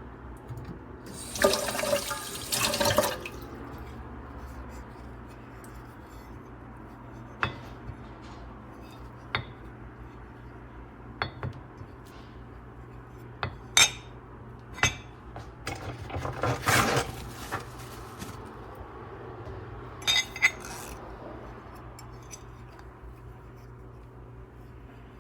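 Parts of an electric meat grinder being handled: a run of clattering about two seconds in, scattered single clicks and knocks, another burst of clattering near the middle and a quick double click later, over a low steady hum.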